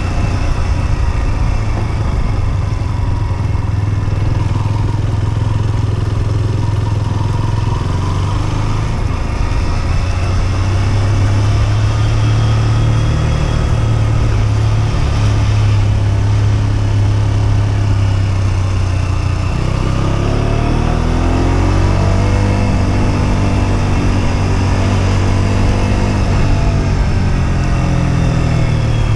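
Husqvarna Svartpilen 125's single-cylinder engine running while riding, with wind noise over it. It holds a steady speed at first, then for the last third the revs rise and fall.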